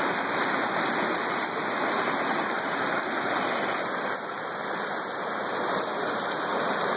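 Stream water rushing and splashing over rocks in a small cascade: a steady, even rush that dips slightly about four seconds in.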